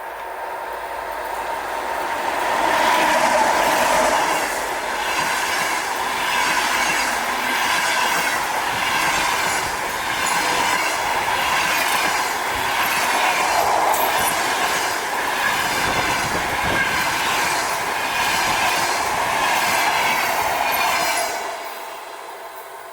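A passenger train running through a station at speed, its wheels clicking over rail joints in a steady rhythm over the rolling noise and a thin wheel squeal. It builds up, runs steadily, and drops off quickly near the end as the train passes.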